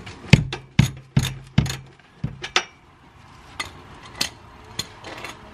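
Wrench work on the 16 mm underbody bolts: a run of sharp metallic clicks about every half second, the first few each followed by a short low hum, then a few fainter clicks near the end.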